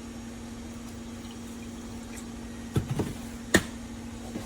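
Creamer being poured into a milk frother's cup, a faint pour over a steady low hum, then a few light clicks and knocks about three seconds in, the sharpest near the end.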